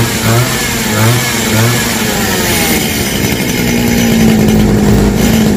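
Small two-stroke brush-cutter engine, rigged to drive a hydraulic pump, running under radio-controlled throttle. Its speed rises and falls several times, then holds steady for the last couple of seconds.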